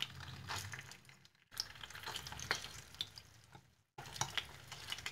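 Boiled chicken pieces sizzling and crackling faintly in olive oil that is just heating in a non-stick frying pan as they are laid in, broken twice by a brief gap.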